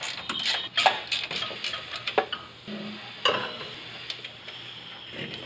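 Ratcheting box-end wrench clicking as it turns the upper strut mount nuts, with metal clinks, then a single sharp knock about three seconds in as the strut and coil spring assembly is worked free.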